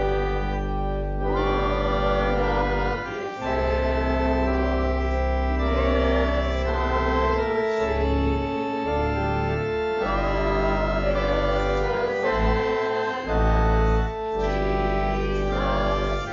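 Organ playing a hymn tune in sustained chords with deep held bass notes, pausing briefly between phrases, with a small group of voices singing along.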